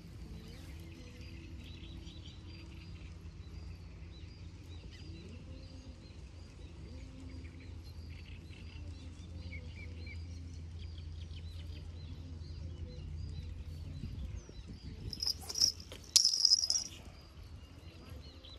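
Outdoor ambience: a steady low rumble with scattered faint chirping. About three-quarters of the way through comes a loud, close rustling with sharp clicks, lasting a couple of seconds.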